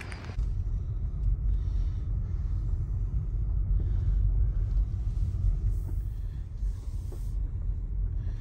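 A low, uneven rumble with no clear pitch.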